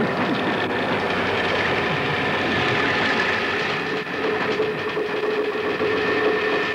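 Dense, rattling soundtrack noise with steady high droning tones that grow clearer about halfway through.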